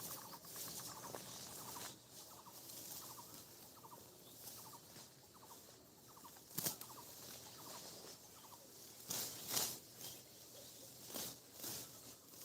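Faint rustling and crackling of dry wheat stalks, with several sharper crunches in the second half. Under it, a bird's short rattling call repeats about twice a second.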